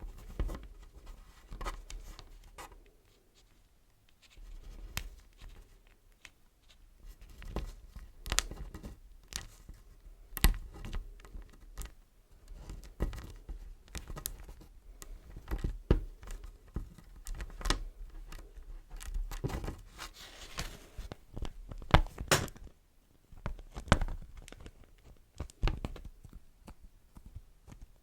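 Beeswax-coated wrap crinkled and handled close to the microphone: irregular crackling and stiff rustling, with sticky peeling sounds.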